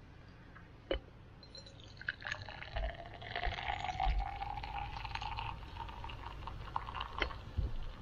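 Liquid poured into a container for about five seconds, the pitch rising slowly as it fills. A sharp click comes just before the pour and another as it ends.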